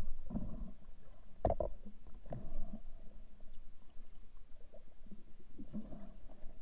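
Muffled underwater noise heard through a sealed camera housing: a low rumble with scattered dull knocks, the strongest about a second and a half in.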